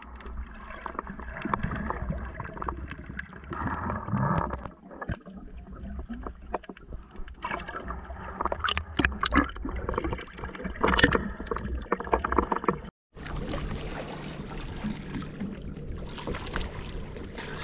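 Water sloshing and gurgling around a camera held underwater, with many sharp clicks and knocks. About thirteen seconds in the sound drops out for a moment and gives way to a steadier hiss of water lapping at the surface around a swimming snorkeler.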